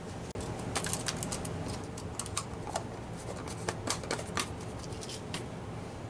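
Small screws and parts clicking and rattling against each other as a parts bin is searched through by hand: a quick run of light clicks that thins out toward the end.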